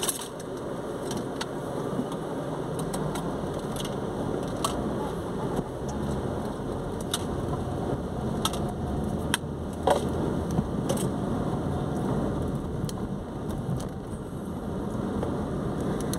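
Car cabin noise while driving slowly on a wet road in the rain: a steady low rumble of engine and tyres on wet tarmac, with scattered light ticks of raindrops on the car.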